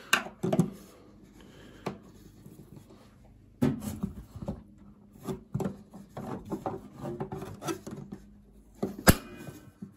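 Scraping, rubbing and clicking as fingers and a screwdriver work at the rubber door seal and coiled retaining spring of a Bosch Serie 8 front-loading washing machine, with a sharp click about nine seconds in.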